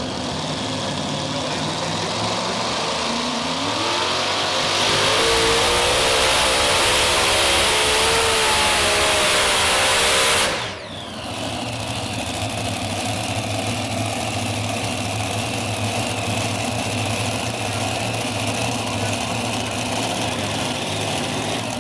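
Multi-engine modified pulling tractor's supercharged V8 engines revving up and running at full throttle under load, then cut back abruptly about ten seconds in as the pull ends short. Afterwards the engines run on steadily at low throttle.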